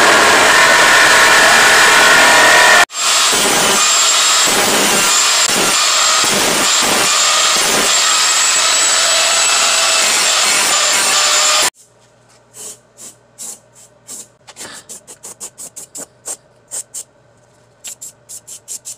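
Corded reciprocating saw cutting through a truck's fender trim, running steadily and loudly, with a jump in the recording about three seconds in. About twelve seconds in it stops abruptly, and an aerosol spray-paint can hisses in many short bursts as the cut edge is painted.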